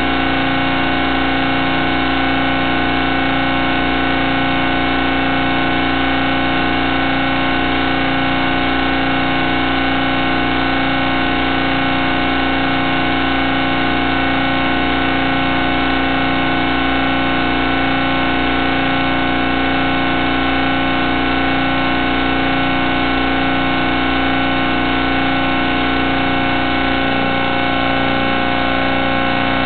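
Steady electrical hum and buzz from an analog FPV video-receiver recording. It stays the same whether the quad's motors are disarmed or drawing current in flight, so it is noise on the recorder's audio channel, not propeller sound.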